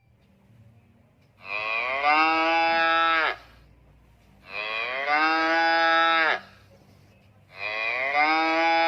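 A cow mooing three times, each call a long, drawn-out moo of about two seconds that drops in pitch at its end.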